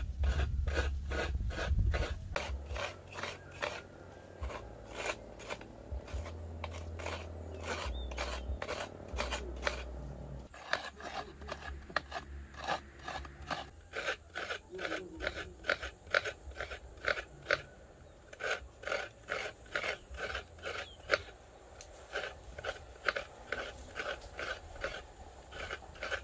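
A fresh coconut half being grated by hand, its white meat scraped out in a steady series of rasping strokes, a few a second.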